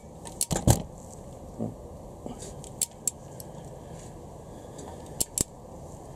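Large torque wrench on an ARP head-stud nut, tightening it to 60 ft-lb: a quick cluster of sharp metallic clicks about half a second in, then a few single clicks later, over a steady low hiss.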